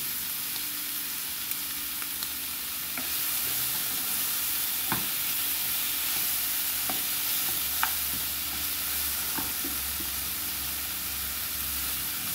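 Beef liver and green onion sizzling in oil in a skillet, with a steady hiss, while a plastic spoon stirs them, tapping and scraping the pan a few times.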